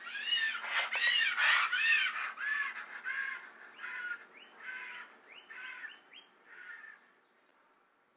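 Pteranodon creature sound effect: a run of cawing, screeching cries, about two a second, each rising and then falling in pitch. The cries grow fainter and stop about seven seconds in.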